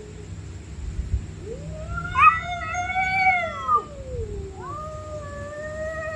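Stray cats caterwauling: one long yowl that rises and then falls away over about two and a half seconds, then a second long yowl starting near the end.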